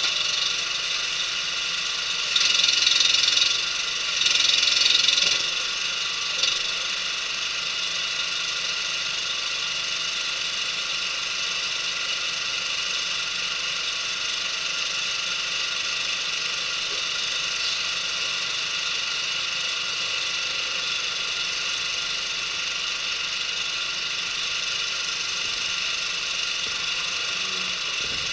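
Engine running steadily with a high steady whine over it. A few seconds in come two louder rushes of noise, each about a second long, then a single click.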